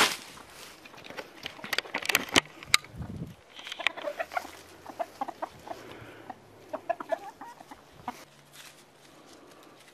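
Chickens clucking in short calls as they peck at a pile of bolted spinach leaves. In the first three seconds there are sharp clicks and rustling as the greens land in the run.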